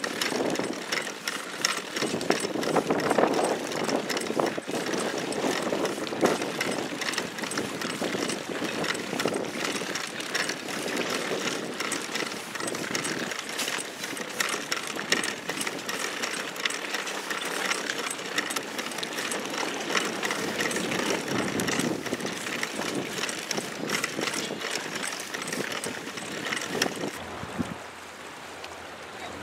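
Small open boat under way through choppy water: a steady dense rush of water splashing against the hull and wind noise, with a fast rattling texture. It gets quieter near the end.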